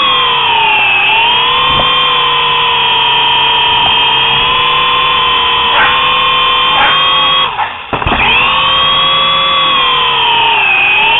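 Small remote-control toy helicopter's electric rotor motor whining steadily in flight, picked up by the camera mounted on the helicopter itself. The pitch sags and recovers a few times, and about eight seconds in the whine drops out briefly, then rises again.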